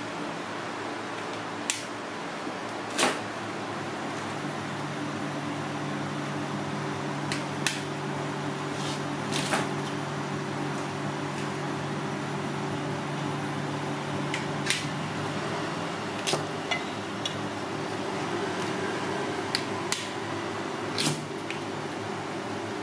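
Kitchen noise during cooking: a steady hiss with a low hum, broken by about ten sharp clicks and knocks of utensils and cookware.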